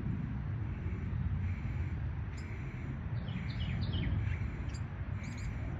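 Small birds chirping: scattered short high calls, with a quick run of falling notes about three seconds in, over a steady low outdoor rumble.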